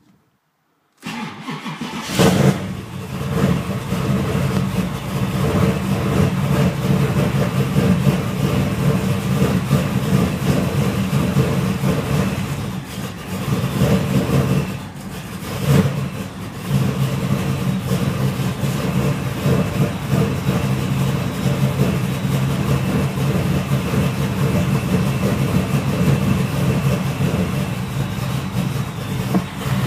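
A 383 stroker small-block V8 built from a GM LT1 is cranked briefly, fires a little over two seconds in, and keeps running. It is a cold start at about 28 degrees after sitting for a couple of months. The engine note sags and picks up twice about midway, then runs steadily.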